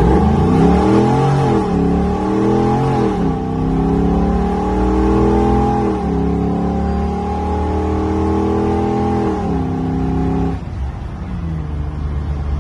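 A Land Rover Defender's 6.2-litre LS3 V8 accelerating under load, its pitch climbing and dropping back several times as the six-speed automatic upshifts. About ten seconds in it backs off to a lower, steady run.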